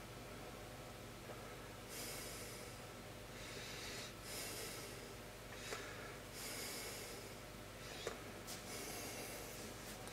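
A person breathing audibly near the microphone, one slow breath about every two seconds, over a faint steady hum. Two faint clicks come in the second half.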